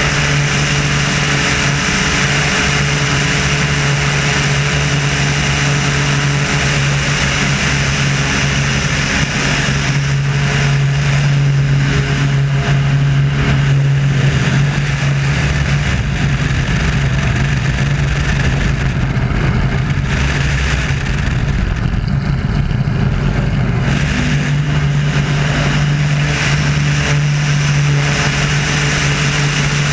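Wolf Pitts Pro aerobatic biplane's engine and propeller running at high power, heard from a camera mounted on the outside of the plane with heavy wind rush over the microphone. The engine's drone weakens for several seconds past the middle, then comes back strong.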